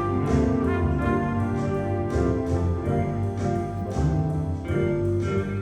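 Live jazz band playing: saxophones and trumpet holding chords over piano, bass, guitars and drums, with a steady beat.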